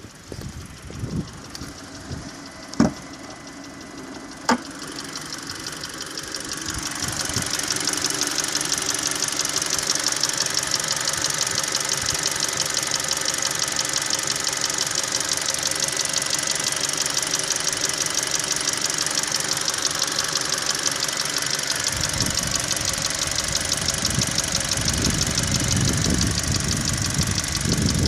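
Hyundai 2.0 G4NA inline-four petrol engine idling warm with a fast, even knocking from inside the engine, a knock the owner says comes and goes at random and does not depend on warm-up. The engine sound grows louder about six seconds in, after two sharp knocks in the first five seconds.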